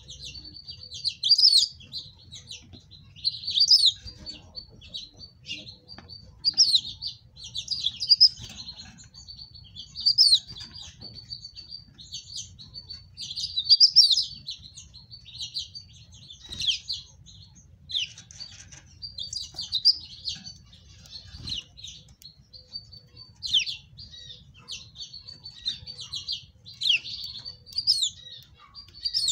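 House finches chirping: a cluster of quick high chirps every second or two over continuous faint twittering.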